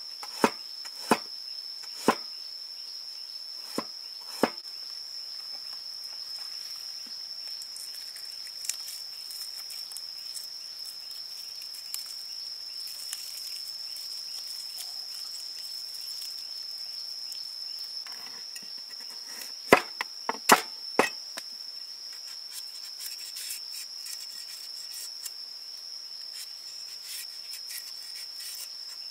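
A steady, high-pitched insect drone runs throughout. Over it come sharp knocks of a cleaver slicing ginger on a wooden chopping board in the first few seconds, and a cluster of louder knocks about twenty seconds in.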